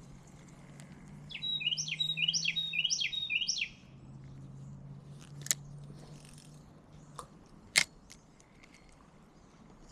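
A songbird singing one quick phrase of about five down-slurred notes. Later come three sharp clicks, the last the loudest, over a faint low steady hum.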